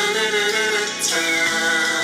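Music: a female singer holds sustained notes with vibrato over a band backing, in a soulful pop ballad.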